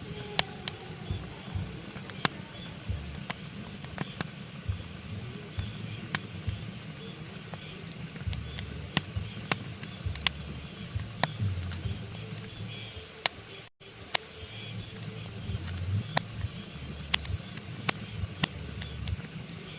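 Pine logs burning in a fireplace, crackling with irregular sharp pops over a steady hiss and a low rumble of the flames. The sound drops out for an instant about 14 seconds in.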